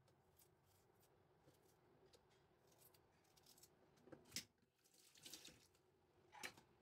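Small kitchen knife scraping in faint short strokes while peeling a potato by hand, then two sharp knocks against a wooden cutting board, one a little past the middle and one near the end, with a brief scrape between them.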